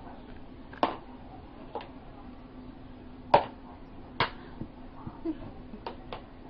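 A thin stick smacking a white plastic tray: about six sharp, irregular taps, the loudest a little past halfway.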